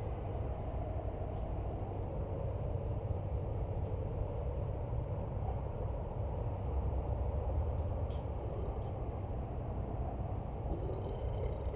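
Steady low rumble with no distinct events, with a faint click about four seconds in and another about eight seconds in.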